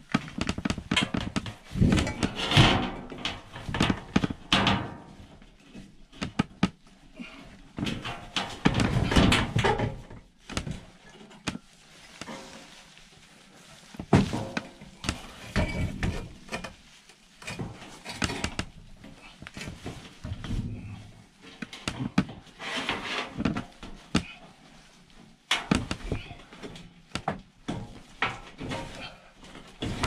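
Replacement drain pan being pushed, scraped and knocked into place under an air handler's evaporator coil: irregular thunks and scrapes coming in spells, the loudest in the first ten seconds.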